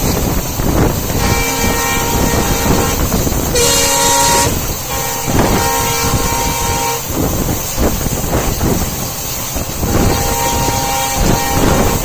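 Diesel locomotive air horn sounding several long, steady blasts over the continuous rumble and wind noise of a moving passenger train.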